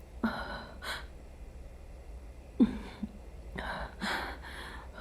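A woman's short breathy gasps and sighs, about five of them, a second or so apart, as she tries to catch her breath in distress.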